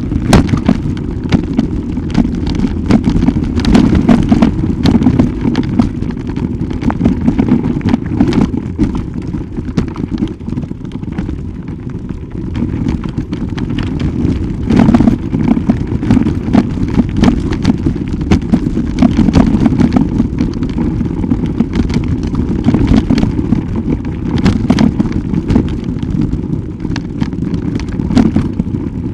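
Loud rumble and buffeting on a moving camera's microphone, with frequent sharp knocks and rattles throughout.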